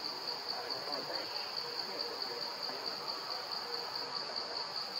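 Insect chorus in the trees: a steady, high, evenly pulsing buzz.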